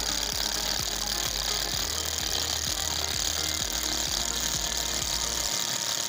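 Homemade mini jackhammer, a high-RPM 12 V 775 DC motor driving a bit that jolts up and down, running steadily and chipping at a concrete wall with repeated knocks.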